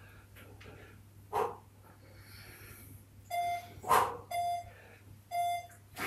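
Sharp, forceful exhalations about every two and a half seconds, one with each push-up rep. In the second half, an interval timer beeps three times about a second apart, counting down the last seconds of the set.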